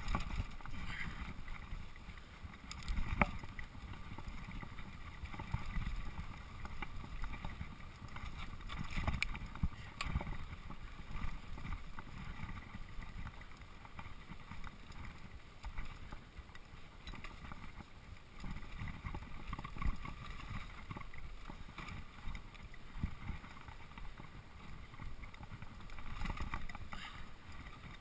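Mountain bike running fast down a dirt singletrack: steady tyre rumble and wind on the microphone, with occasional sharp knocks as the bike hits bumps, the strongest about three seconds in.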